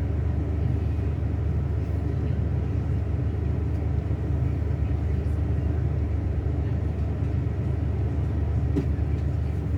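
Scania K360 bus's rear-mounted diesel engine running at a steady speed under way, a low, even drone.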